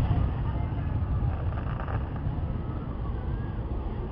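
The tail of a distant firework shell's boom fades out at the very start. Then a steady low rumble of wind on the microphone and traffic fills the rest.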